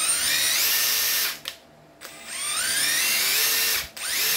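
Hitachi 18V brushless cordless drill run free on the trigger: the motor whines up in pitch as it spins up and runs about a second and a half, stops, then does it again, with a shorter pulse near the end.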